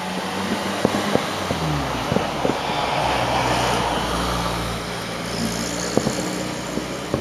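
Road traffic from a city street: a steady engine hum with a vehicle swelling past, and scattered short pops from distant fireworks bursting.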